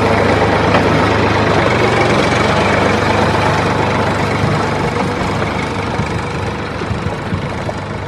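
Tractor engine running steadily with a low hum, slowly fading out toward the end. It is laid over the picture, since the toy tractor is pulled by a string and has no engine.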